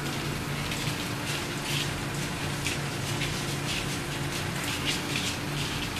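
Puppies scrabbling and rustling on blankets: irregular scratchy noises several times a second, over a steady low hum.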